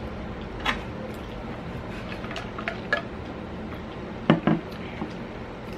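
Scattered small clicks of chewing and handling, then two sharp knocks close together a little past four seconds as a lidded glass jar mug is handled and set on the table, over a steady low hum.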